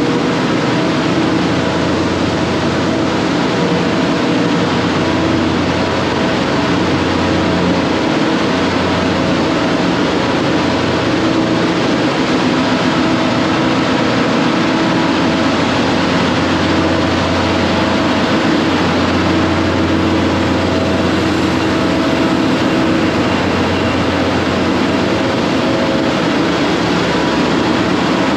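Ship's engine-room machinery running steadily with the main engine stopped and the boilers in operation: a loud, constant hum carrying several steady tones.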